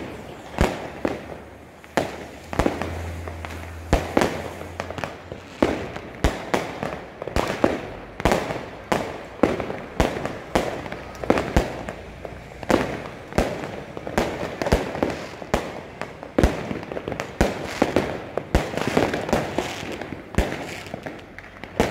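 Fireworks and firecrackers going off in the street: an unbroken, irregular series of sharp bangs, about one or two a second, some much louder than others.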